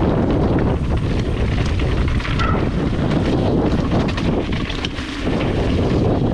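Wind buffeting an action camera's microphone on a mountain bike riding a descent, a steady rumble. Over it are many short clicks and rattles from the bike running over the trail.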